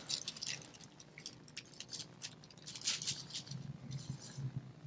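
Faint rustling and light scattered ticks of paper: Bible pages being turned to find a passage.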